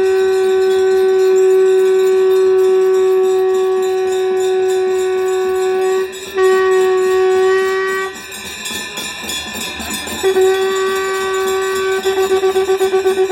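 Conch shell (shankh) blown in long held notes at one steady pitch, with a short break about six seconds in and a longer gap of noisier sound around eight to ten seconds. Near the end the note wavers rapidly, several pulses a second.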